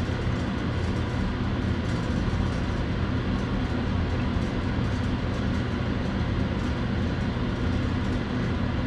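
Steady low machine drone, with constant low hum tones beneath an even rushing noise, unchanging throughout.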